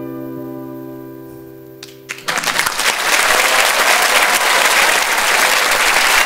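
The song's last chord rings and fades away; about two seconds in, the audience bursts into applause and keeps clapping loudly.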